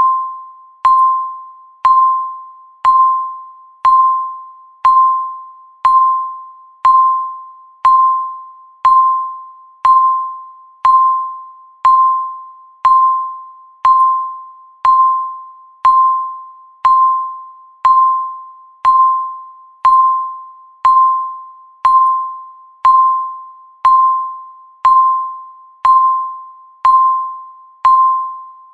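Countdown timer sound effect: a bell-like ding struck once every second, each one fading quickly before the next.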